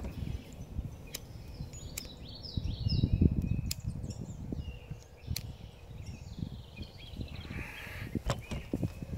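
Wind rumbling on the microphone in gusts, strongest about three seconds in, with birds chirping and a few sharp clicks.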